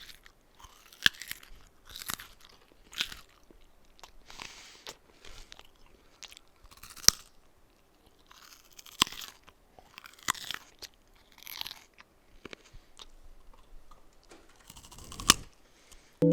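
A series of about a dozen separate crunches, irregularly spaced roughly a second apart, some with a sharp crack, made as a homemade Foley effect.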